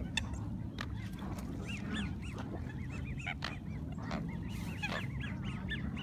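A crowd of geese and ducks calling: many short honks overlapping, several a second, without a break.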